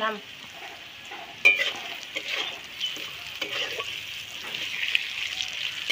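Potato pieces and ground spices sizzling steadily in hot oil in a metal karai, as the spice masala is sautéed. From about a second and a half in, a metal spatula scrapes and knocks against the pan as it stirs.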